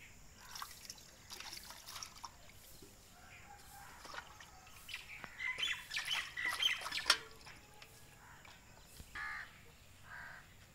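Hand-milking: streams of milk squirting into a steel pail in quick irregular spurts, busiest and loudest a little past the middle.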